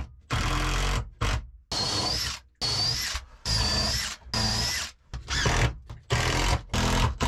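Makita cordless drill boring counterbores into a wooden ledger, run in a string of short bursts under a second each. The motor whine dips and rises within each burst as the bit bites into the wood.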